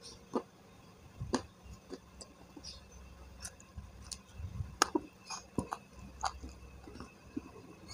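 Close-miked eating sounds: a person chewing a mouthful of rice, fried chicken and raw green vegetables, with scattered sharp wet mouth clicks and smacks.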